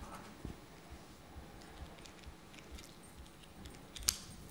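Quiet room tone of a lecture hall with a few faint clicks and taps, and one sharper click about four seconds in.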